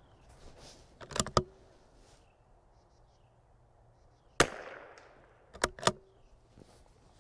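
A single .22LR rifle shot from a CZ 457 bolt-action about four and a half seconds in, with a short echoing tail. Two sharp clicks come about a second in and two more just after the shot.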